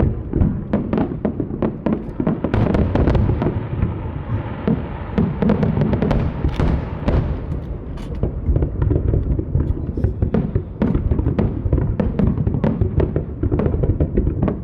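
Aerial fireworks display: shells bursting in quick succession, a dense run of booms and sharp cracks over a continuous low rumble.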